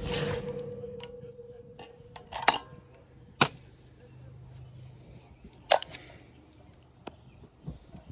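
AR-10 rifle in .308 firing single shots: three sharp reports, about two and a half, three and a half and almost six seconds in, with the tail of a shot fired just before fading at the start.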